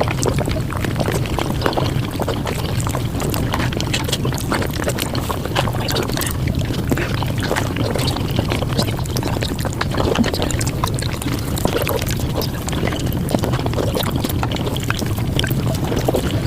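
Mukbang eating sounds sped up to five times normal speed: a dense, unbroken stream of small clicks and smacks over a steady low hum.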